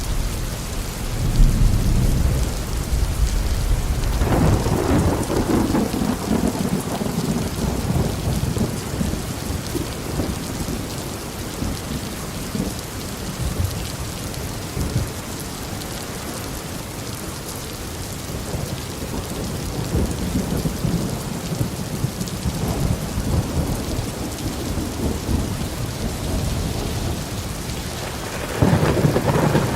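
Steady tropical rain falling, with thunder rumbling: heavier rumbles in the first few seconds and a louder peal that begins near the end.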